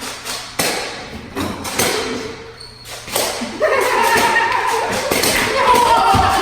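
A run of short thumps and knocks, with voices from about three and a half seconds in.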